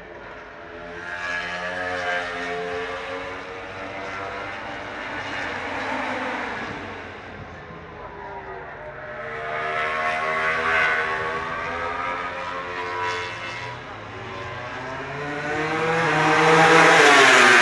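MotoGP racing motorcycles running at high revs on the circuit, several in turn, the engine notes swelling and sliding in pitch as each one goes by. The loudest comes near the end.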